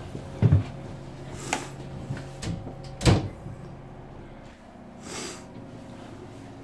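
Steady low machinery hum of a ship's interior, with two loud thumps about two and a half seconds apart and a few lighter knocks. A short rushing noise comes about five seconds in.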